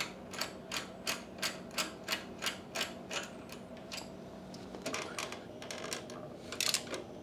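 Socket ratchet clicking in quick, even strokes, about three a second, as the engine's oil drain plug is run back in; the clicks thin out after about three seconds, with a brief flurry near the end.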